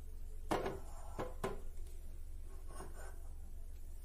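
Steel pot of water and potato cubes set down on a gas stove's pan supports: three sharp metal knocks in quick succession, then a softer clank about three seconds in.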